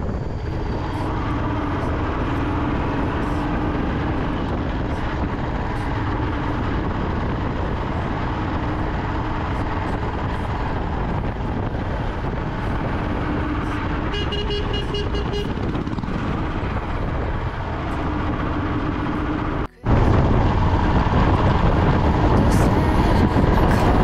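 Royal Enfield single-cylinder motorcycle engine running under way, mixed with wind and road noise. A short vehicle horn sounds a little past the middle; near the end the sound cuts out for an instant and comes back louder.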